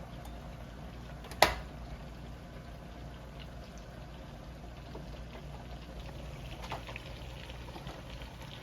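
Small lamb chops frying in melted garlic butter in a skillet, a steady sizzle, with one sharp knock about a second and a half in.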